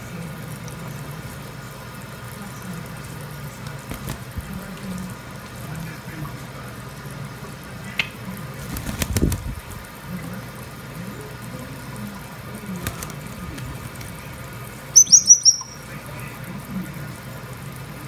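Shower spray running steadily onto a wet Congo African grey parrot, with a brief burst of wing flapping about nine seconds in. About fifteen seconds in, the parrot gives a quick run of loud, high chirps that fall in pitch.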